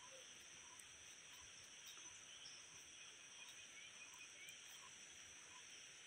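Faint forest insects droning steadily at a high pitch, with a soft low note repeating about every three-quarters of a second.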